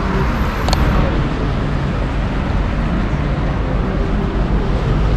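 Steady city street traffic noise on a wet road, with one short click under a second in.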